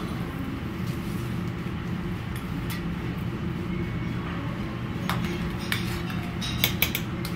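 A few light metal clinks of a spoon and small copper saucepan being handled, starting about five seconds in and bunching near the end, over a steady low background hum.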